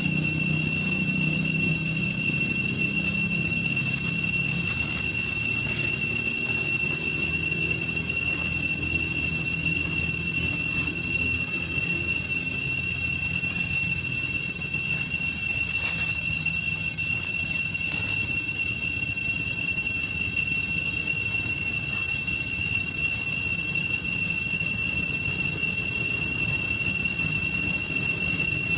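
Steady, high-pitched insect drone holding one even pitch without a break, typical of a cicada chorus in tropical woodland.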